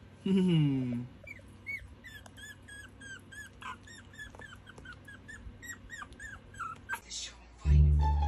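Chihuahua puppy squeaking and whimpering in a quick run of short high-pitched chirps, about three a second, after a falling cry at the start. Music comes in just before the end.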